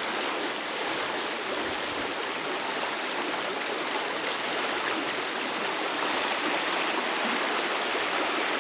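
Creek water rushing steadily over small rapids and rocks.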